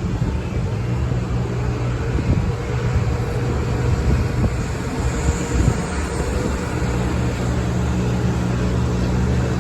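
Steady low engine drone with a rushing noise over it, as from a motor vehicle running; the drone eases off briefly past the middle and then returns.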